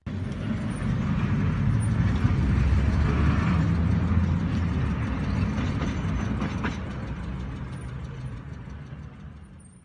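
Steady vehicle rumble and road noise from a car on the move, heaviest in the low end. It swells over the first few seconds, then slowly fades.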